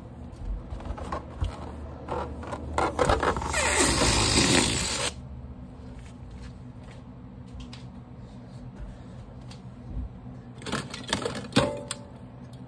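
Objects being handled on a desk: scattered clicks and knocks, with a loud noisy rustle from about three and a half seconds in lasting a second and a half, and another cluster of clicks near the end.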